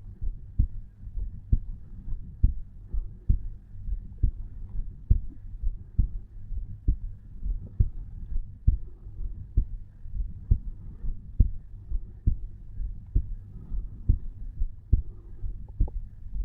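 Resting adult human heartbeat picked up at the chest over the tricuspid valve: steady, even lub-dub beats at about one a second, over a low steady hum.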